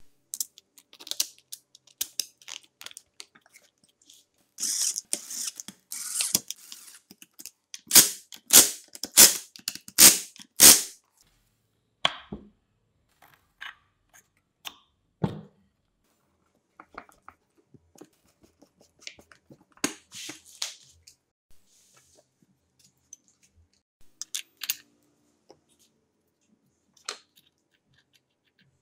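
Hand assembly noises from a chainsaw body and its small metal parts: scattered clicks and light clinks, a short scraping rustle, and a run of five loud sharp knocks about a third of the way through.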